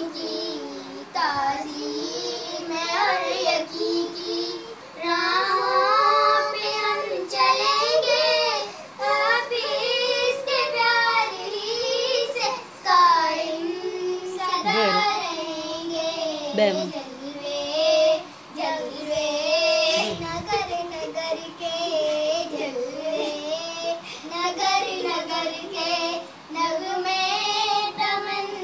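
A child singing a melody alone, without instruments, the notes gliding and held.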